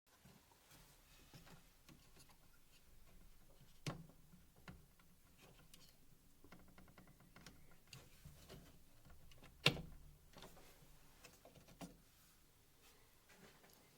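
Quiet handling of a desktop PC case: a few sharp clicks and knocks, the loudest nearly ten seconds in, with a short run of rapid ticks in between, as the case is opened and parts are worked loose.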